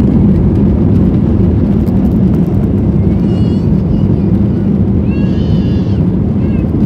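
An airliner's jet engines at takeoff power, heard from inside the cabin during the takeoff roll: a loud, steady rumble with a constant low hum. Two brief high-pitched cries sound over it, about three and five seconds in.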